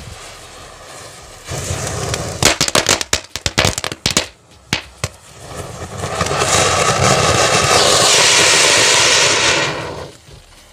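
Diwali firecrackers set off by a burning matchstick chain: a rapid run of sharp cracks and pops for a couple of seconds, then a cone fountain cracker (anar) hissing steadily as it sprays sparks for about four seconds, stopping suddenly near the end.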